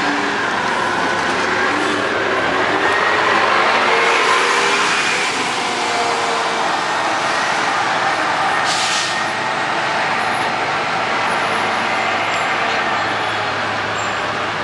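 Orion V transit bus's Detroit Diesel Series 50 engine pulling away, its pitch rising over the first few seconds as the bus speeds up. About eight and a half seconds in there is a short hiss of air from the bus's air brake system.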